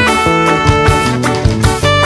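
Ska song by a full band in an instrumental passage without vocals: held melody notes over a steady drum and bass beat.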